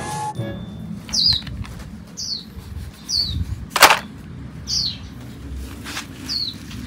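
A small bird calling about five times, each a short, high, falling chirp, with a single sharp clack about halfway through as plastic toys are handled in a basket.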